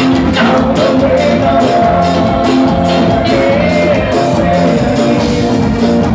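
Loud live band music: a steady beat of about two strokes a second under a held melody line.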